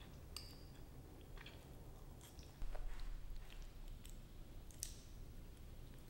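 Light clicks and scrapes of metal chopsticks against ceramic rice bowl and plate while eating, one click with a brief ring about half a second in, with some chewing. A low rumble comes in about halfway through and is the loudest sound.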